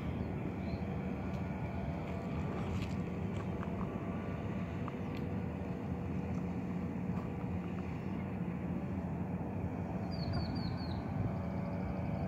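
Steady low outdoor rumble, with a quick run of four high bird chirps about ten seconds in.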